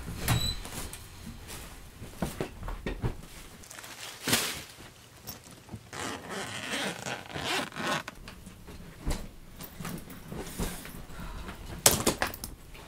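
A bag being packed: a zipper pulled in short rasps among the rustling and handling of clothes and bag fabric, with louder strokes about four seconds in and near the end.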